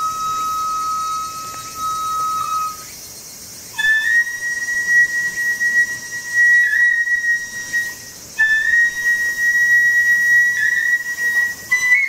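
Japanese transverse bamboo flute (yokobue) played solo in long, held notes with pauses for breath: one lower note, then after a brief gap two long higher notes, the last one bending upward near the end.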